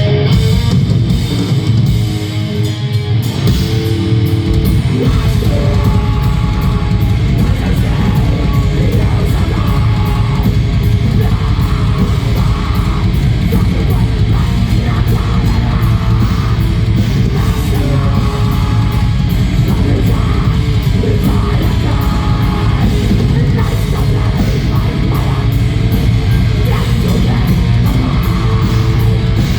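Heavy metal band playing live at full volume: distorted electric guitars over a drum kit. The kick drum drops out briefly near the start, then comes back as a fast, steady pulse from about five seconds in.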